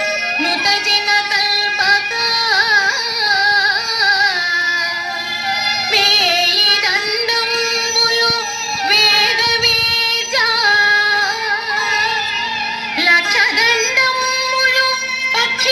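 Recorded Indian song played for a dance: a female voice sings an ornamented, sliding melody over instrumental accompaniment.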